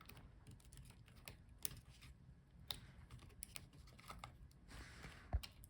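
Faint, irregular small plastic clicks and taps as connectors are unplugged from a laptop motherboard, with one louder knock a little past five seconds in.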